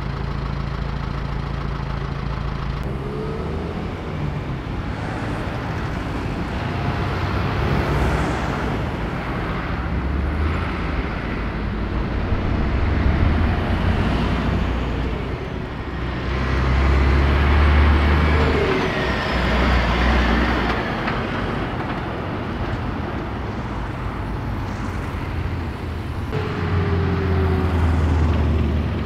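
Road traffic: trucks and cars passing along a city street, their engines rumbling and tyre noise swelling and fading as each goes by. The loudest passes come a little past halfway and near the end.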